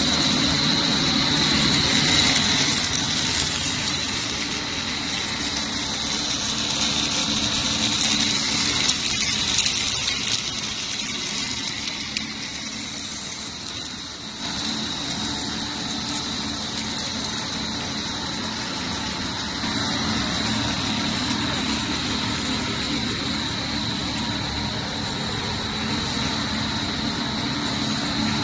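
Snack food extrusion line running: steady hum of the extruder drives and cutter, with a constant high-pitched whine over it.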